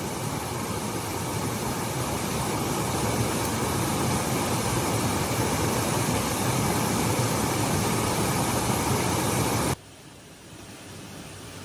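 Steady hiss of heavy rain. Near the end it cuts off abruptly to a much quieter hiss.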